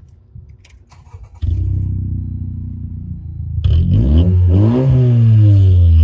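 Honda Civic engine running with an aluminium turbo whistle in its tailpipe. The engine comes in about a second and a half in, then is revved up and down several times from about halfway, getting louder. The whistle gives nothing: no turbo whistle is heard.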